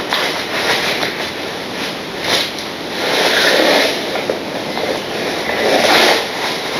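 A model train running on the layout's track: a continuous rattle of wheels on the rails with fine rapid clicks, swelling louder about halfway through and again near the end.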